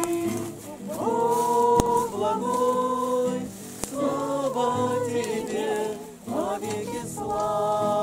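A group of voices, mostly women, singing a slow spiritual hymn together in long held notes, with an acoustic guitar strummed underneath.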